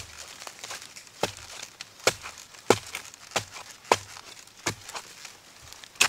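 A long-handled digging tool repeatedly chopping into soil and dry bamboo leaves while digging out an underground bamboo shoot. There are about eight sharp strikes at a steady pace, with dry leaves and loose earth crackling in between.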